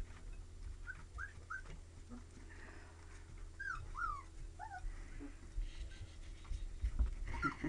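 Young Labrador–retriever mix puppies whimpering: a scattering of short, high-pitched squeaks, several in the first few seconds and more near the end, over a steady low hum.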